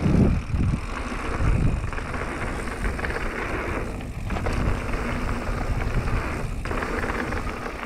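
Wind buffeting the microphone of a mountain bike descending fast, over the crunch and rumble of knobby tyres rolling on a loose gravel trail.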